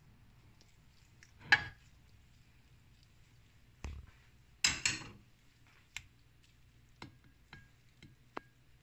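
Kitchen utensils and dishes clinking and knocking together in separate strikes, about eight in all: the loudest about a second and a half in, a strong pair near the middle, and lighter taps near the end that ring briefly.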